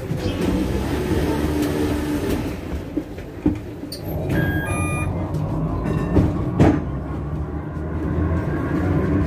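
Heritage tram running along its street track: a steady low rumble, with a few short high tones about four to five seconds in and a couple of sharp knocks a little after six seconds.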